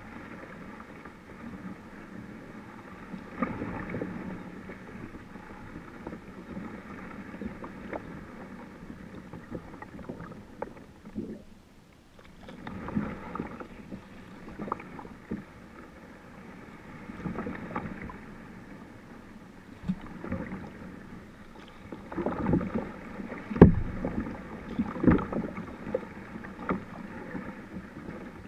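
Kayak paddling in calm water: paddle strokes splash and drip, swelling every few seconds, with a couple of sharp knocks near the end.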